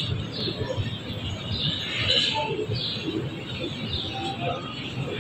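Birds chirping again and again, over a steady low background rumble.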